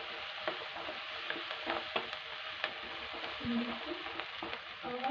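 Diced vegetables (capsicum, carrot, onion and tomato) sizzling steadily in hot oil in a non-stick pan while a spatula stirs them, its edge clicking and scraping against the pan now and then.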